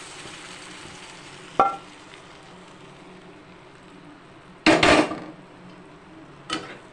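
Cooked dal poured into a hot kadai of fried onions, tomatoes and chillies, with a low sizzle throughout. A single metal clink comes about a second and a half in, a loud clatter of a metal pot or utensil against the pan follows about five seconds in, and a smaller knock comes near the end.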